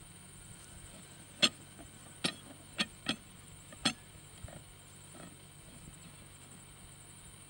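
Metal drilling extension rod being screwed by hand onto the rod in the ground: five sharp metallic clicks and knocks in the first four seconds, the first the loudest, then only faint steady background hiss.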